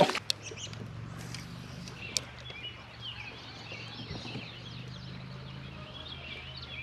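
Birds singing and chirping in the background over a steady low hum, with a single sharp click about two seconds in.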